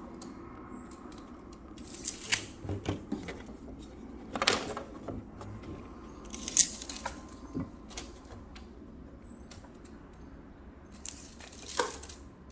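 Scattered knocks and clicks as carpet gripper rods and fitting tools are handled on the stairs, about five separate sharp sounds with the loudest just past the middle.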